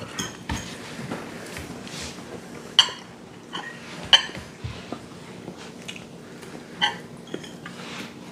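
Cutlery clinking against plates at a dinner table: a handful of sharp, scattered chinks a second or more apart, over low room hum.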